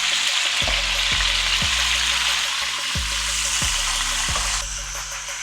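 Chopped green and red peppers and tomato sizzling in hot oil in a pot. The sizzle drops off suddenly near the end.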